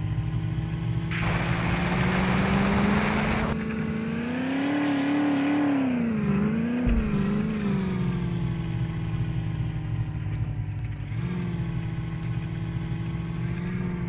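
Land Rover Defender engine running under load as the stuck vehicle tries to pull free, revving up about four seconds in with the pitch wavering up and down before settling back. A rushing noise runs through the first few seconds.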